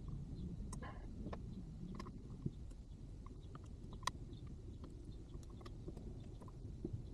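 Faint scattered clicks and taps of small parts and tools being handled, the sharpest about four seconds in, over a low steady background hum.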